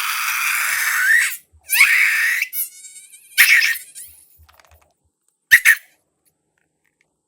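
Air squealing out of a stretched rubber balloon neck: a long high-pitched squeal that wavers in pitch, then three shorter squeals, the last a brief double squeak.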